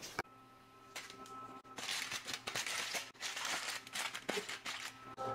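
Aluminium foil crinkling and crackling as it is scrunched and folded shut by hand, starting about two seconds in.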